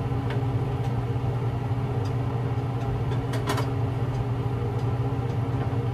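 Steady low mechanical hum from a running motor, with a light knock about three and a half seconds in.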